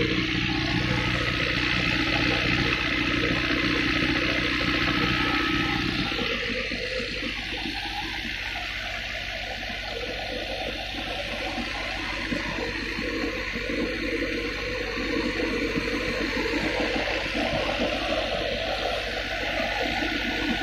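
A New Holland Dabung 85 tractor runs steadily under load, driving a wheat thresher whose drum and fan give a continuous rushing whir as straw and chaff are blown out. The low engine drone weakens about six seconds in, leaving mostly the thresher's rushing noise.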